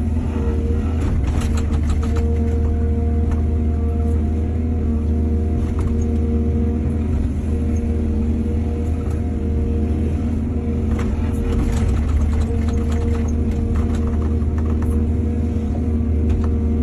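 Excavator's diesel engine running steadily under load with a low rumble and a held whine. Short clatters come about a second in and again around eleven seconds.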